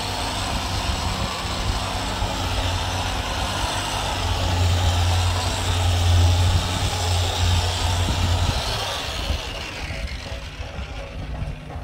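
Steady engine rumble that grows louder toward the middle and fades near the end.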